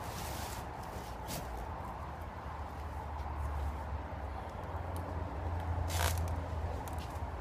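A hot tub shell being handled and pushed over onto an inflatable spa wedge: two brief scrapes, about a second in and near the end, over a steady low hum.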